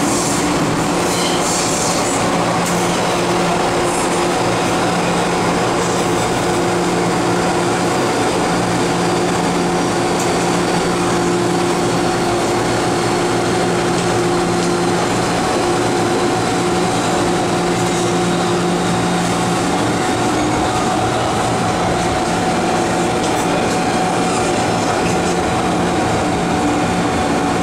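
Running noise inside an MTR M-Train carriage moving through a tunnel: a steady rush and rumble of the train on the track, with a steady hum underneath.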